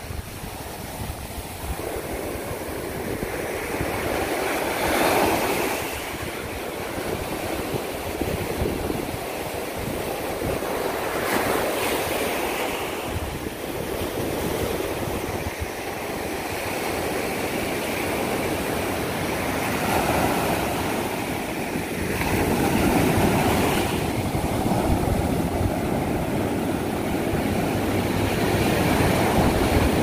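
Ocean surf breaking and washing up a sandy beach: a steady rushing wash that swells louder every few seconds as each wave comes in.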